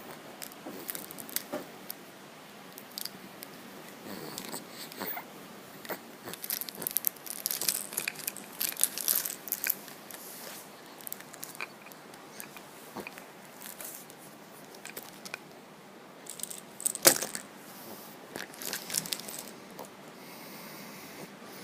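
Chewing and gnawing on a toy: irregular clicks, crinkles and tearing sounds, busiest a third of the way in, with one loud sharp crunch near three quarters of the way through.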